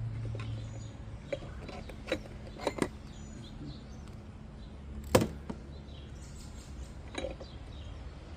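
A handful of separate sharp metallic clicks and knocks from hand tools working on the oil filter housing, the loudest about five seconds in. Birds chirp faintly in the background.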